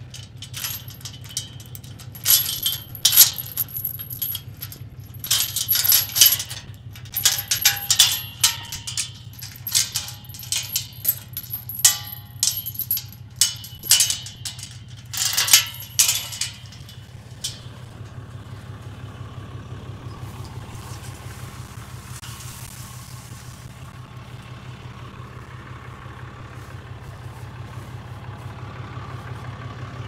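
Vehicle engine idling with a steady low hum. For about the first half it is joined by a run of irregular sharp crackles and snaps, which stop about 17 seconds in and leave only the idle.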